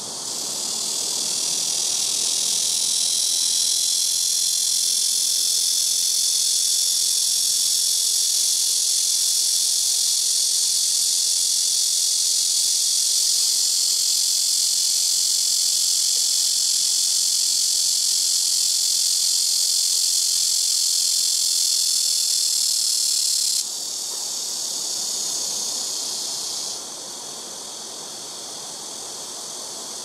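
Blackish cicada (Cryptotympana atrata) singing: a loud, steady, high-pitched buzz that swells in over the first couple of seconds and stops suddenly about three-quarters of the way through. A fainter buzz carries on for a few seconds more before it too drops away.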